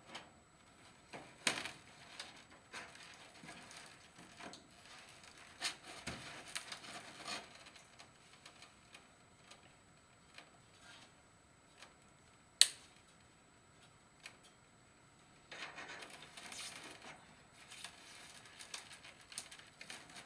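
Chicken wire mesh rattling and scraping in irregular bursts as it is poked and pressed against foam blocks, with scattered light clicks. There is one sharp snap a little past halfway and a longer stretch of rustling near the end.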